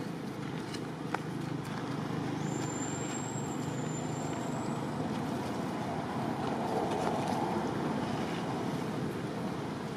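Steady low rumbling outdoor background noise that swells a little about seven seconds in. A thin, high whistle-like tone runs from about two to five seconds in.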